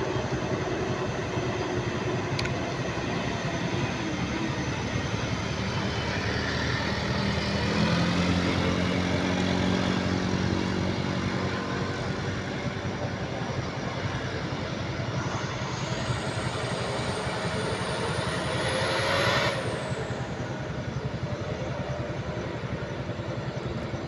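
Log-laden truck running through a hairpin bend, its engine note rising and loudest as it passes about a third of the way in, then fading as it pulls away. Near the end a high whine rises for a few seconds and cuts off suddenly.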